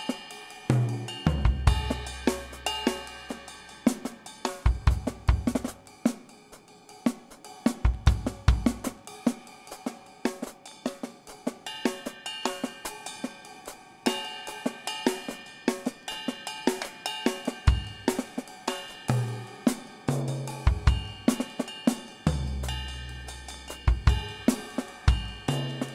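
Background music led by a drum kit: steady cymbal, hi-hat and snare strokes, with a deep bass note held now and then.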